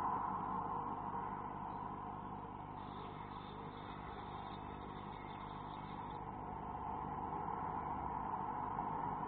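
Steady rushing background noise with a low hum, fading over the first few seconds and swelling again toward the end.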